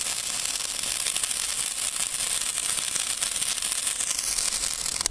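Old Moog Nico 'Zauberstäbe Extra bunt' sparkler burning with a dense, steady hissing crackle, the strange crackling sound these old sparklers make. It stops suddenly at the very end.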